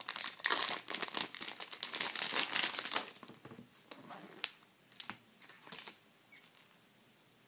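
Foil wrapper of a Match Attax trading-card booster pack being torn open and crinkled for about three seconds, then a few separate light clicks and taps.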